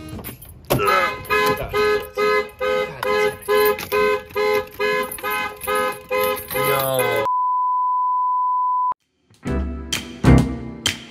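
Background music with a pulsing rhythm, broken off about seven seconds in by a steady single-pitch beep lasting about a second and a half, after which music with a strong beat comes back.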